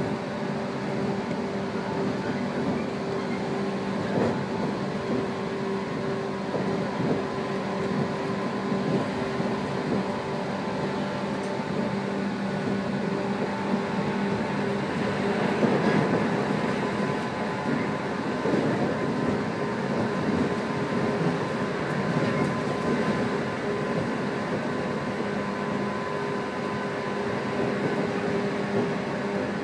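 A JR 115 series electric train running along the line, heard from inside the passenger car. Steady running and rail noise with a low hum that fades out for a while in the middle and returns near the end, scattered knocks from the wheels, and a louder stretch about halfway through.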